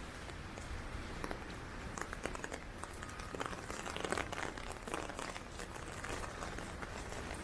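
Heavy rain hitting an umbrella overhead: a dense, irregular crackle of drops striking the canopy, with a low rumble of wind underneath.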